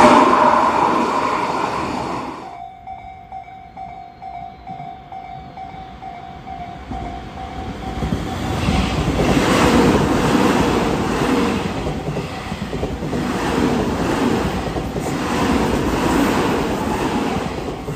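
A level crossing warning bell rings in steady pulses. From about eight seconds in, a Tobu 30000 series electric train passes over the crossing, its running noise rising and falling in regular surges as each wheel set goes by. A loud rushing noise from the previous clip fades out in the first two seconds.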